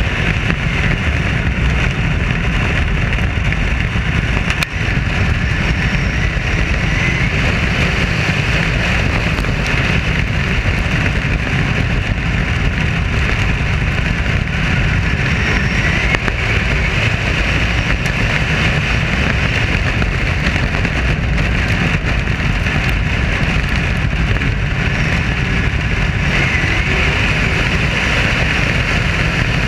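Dirt modified race car V8 engines running at race pace, picked up by a roof-mounted camera as a loud, steady mix of engine noise and rushing air, with a few faint rises in pitch.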